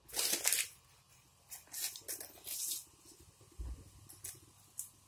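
Cumin seeds sizzling in hot oil in a steel kadhai as they go in, in a few short hissing spurts, the strongest at the start. A dull low thump comes about three and a half seconds in.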